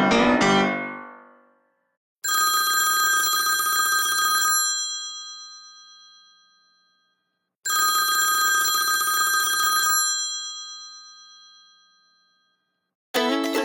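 Telephone-bell ringtone on an Apple iPad, ringing twice, each ring about two seconds long with a long fading tail. At the start the tail of an electric-piano ringtone dies away, and near the end a plucked-string ringtone begins.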